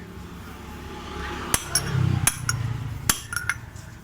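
A hammer striking a blunt drift to drive a bearing into its seat in a Honda Vario 125's CVT: three sharp metallic strikes about three quarters of a second apart, each ringing briefly, with a few lighter taps after them.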